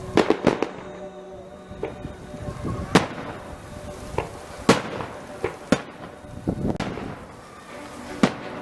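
Fireworks bursting in a display: an irregular string of about a dozen sharp bangs, the loudest about three and about five seconds in.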